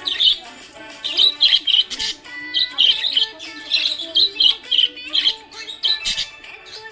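Pet budgerigar chirping in quick, bright bursts, several a second, over background music with held notes.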